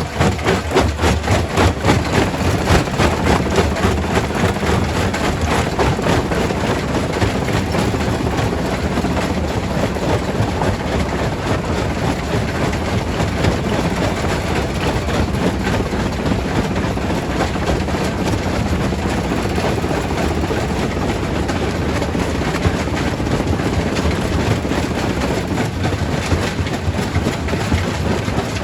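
Primary rock crusher running: a continuous dense clatter and grinding of stone being crushed over a low rumble, pulsing more strongly in the first few seconds.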